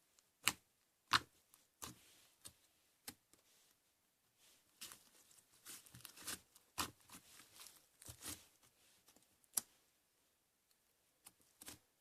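Slime being handled, giving off irregular sharp sticky clicks and pops: a few spaced ones at first, then a denser run of crackles in the middle and a couple more near the end.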